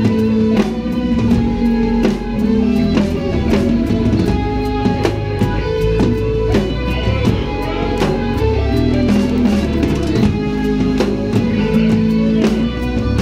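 Live rock band playing loud, with electric guitar riffs over a drum kit and a dense run of drum and cymbal hits.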